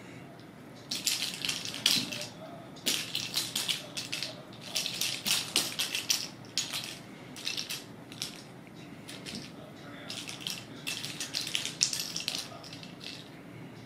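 A purple wand-toy ball batted and dragged about by kittens, making repeated bursts of rapid clicking rattle. Each burst lasts about a second, with short pauses between them.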